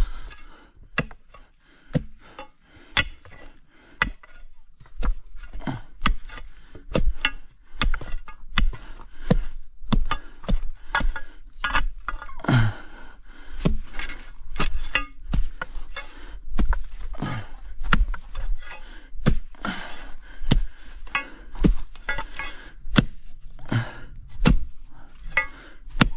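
A hand digging tool striking again and again into hard ground and tree roots, at an irregular pace of about one or two blows a second.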